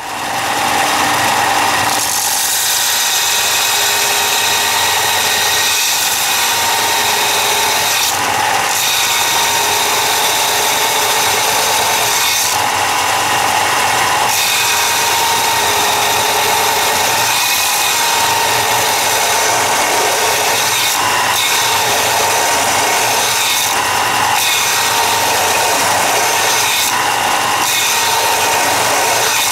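Ryobi BD4601G belt sander switched on at the start and running steadily, its belt grinding the tip of a steel twist drill bit held in a General 825 sharpening jig. The grinding swells and eases as the bit is pressed in. The bit sticks out too far past the lip rest, as the instructions say to set it, so a great deal of metal has to be ground off.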